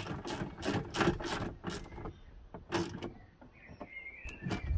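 A hand spanner turning a nut on a 12-volt battery busbar terminal, giving a run of quick metallic clicks for about three seconds. A short warbling chirp follows near the end.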